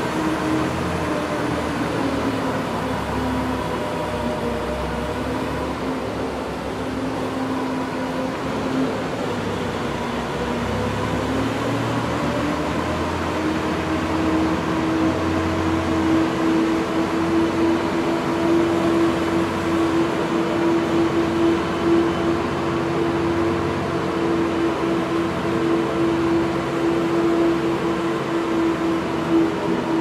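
Zamboni ice resurfacer running, its engine giving a steady hum over a constant noisy wash. The engine note dips lower about two seconds in, climbs back about ten seconds later, and then holds steady.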